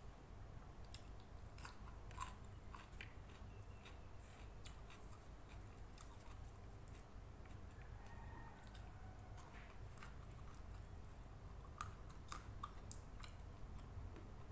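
A person chewing a mouthful of nasi uduk, heard close up: faint irregular crunches and small wet mouth clicks over a low hum.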